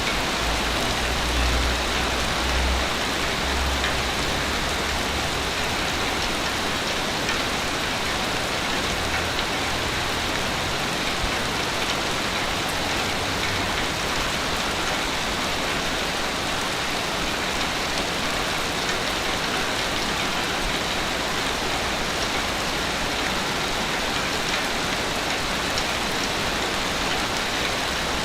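Ocean waves breaking and washing on a beach: a steady hiss of surf, with a low rumble in the first few seconds and again around ten seconds in.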